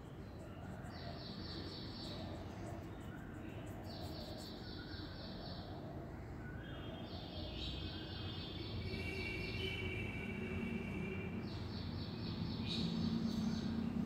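A bird calling in repeated high trills, each about a second long, several times over, against a steady low background rumble.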